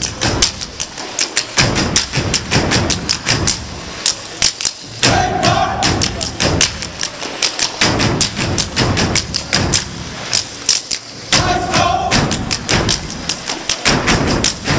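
Step team stepping: a fast, tight rhythm of sharp foot stomps and hand claps, with short bursts of shouting voices about five and eleven seconds in.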